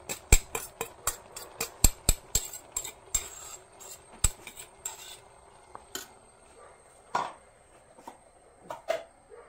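A metal spoon knocking and scraping inside a stainless-steel mixer-grinder jar as ground coconut paste is tapped out into a pot: quick clinks, about three or four a second, for around five seconds, then a few scattered knocks.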